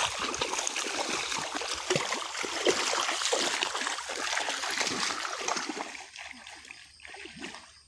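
Feet wading through shallow water and mud in a flooded rice paddy, with dense, irregular sloshing and splashing that eases off after about six seconds.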